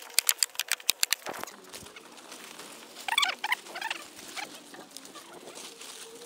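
Rapid sharp clicks of a hand staple gun fixing plastic sheeting to wooden formwork boards, stopping about a second in. Then plastic film crinkles as it is handled.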